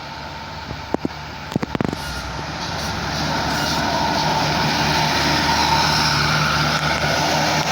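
Tour bus approaching and passing close, its engine noise swelling over about two seconds and then staying loud. A few sharp clicks about a second in.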